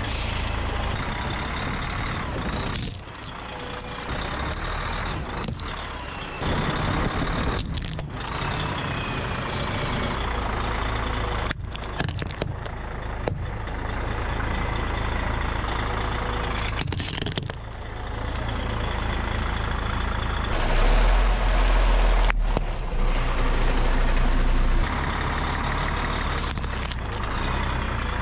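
A string of short clips of a vehicle's engine running as its tyre rolls over and crushes objects, among them a plastic toy car and food packages. The sound changes abruptly every few seconds at each cut, and the low engine rumble is loudest about three-quarters of the way through.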